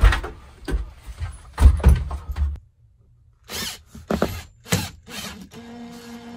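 Cordless drill/driver driving cabinet screws with fender washers through rigid fiberglass insulation into wood strips: a few knocks and thumps of the tool and screws being handled, a short silent break, more knocks, and then near the end the motor runs with a steady hum as a screw is driven.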